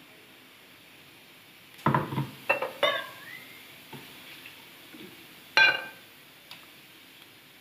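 Steel spoon knocking and scraping against a stainless steel mixer-grinder jar and bowl while ground paste is emptied out: a quick cluster of ringing metal clinks, then a few seconds later one louder ringing clink.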